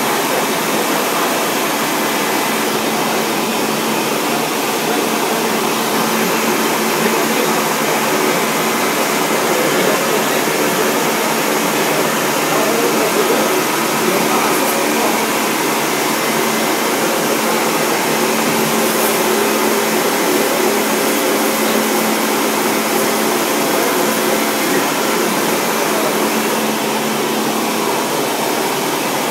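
Foam-cutting machine running steadily as it cuts a large block of foam: a continuous machine noise with a low, constant hum.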